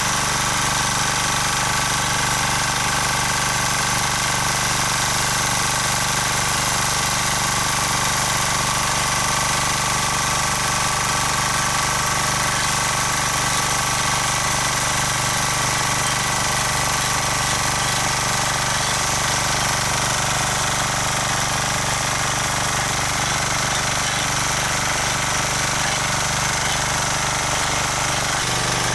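Rotakt walk-behind rotary tiller's engine running steadily while its tines mill the soil. The note shifts slightly near the end.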